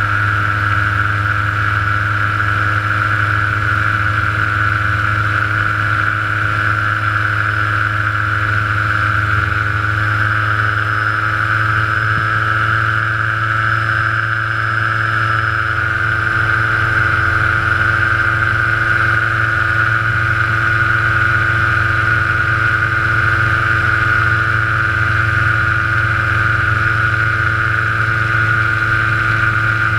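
Small aircraft engine running steadily at constant power in flight, heard from on board, with a slight shift in pitch about a third of the way in.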